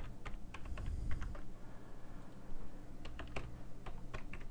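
Typing on a computer keyboard to enter a username and password: scattered key clicks, a short pause in the middle, then a quicker run of keystrokes.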